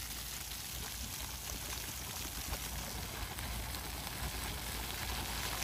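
Floor-fountain jets spraying up from the paving and falling back onto the wet stone: a steady hiss of spray with many small splashing patters.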